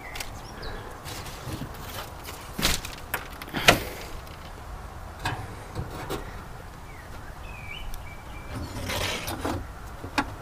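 Scattered knocks, scrapes and rustles of handling on a corrugated roof as grapevine growth is pulled away by hand, the sharpest knock about three and a half seconds in.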